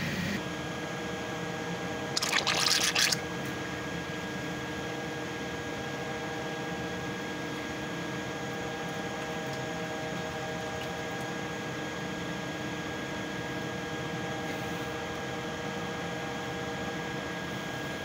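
A hissing burst of air and water from an open vent point on hot water pipework, about a second long starting two seconds in, over a steady hum of running plant-room machinery with several fixed tones. The sound is air being bled out of a hot water system that still holds a lot of air.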